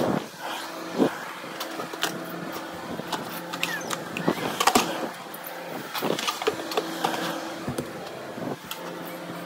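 Knocks, clicks and rustles of a handheld phone being jostled among plastic baby toys, over a steady low hum that drops out now and then.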